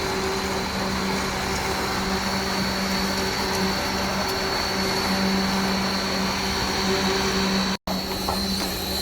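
KCP63 concrete pump truck running: a steady machine drone with a low hum and a thin high whine. The sound cuts out for a split second near the end.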